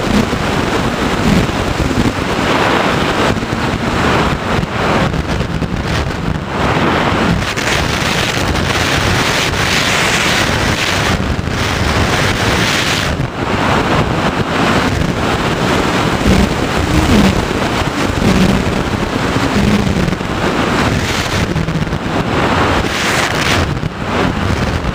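Loud, steady wind rushing over the microphone of the onboard camera on an FPV Raptor radio-controlled plane in flight.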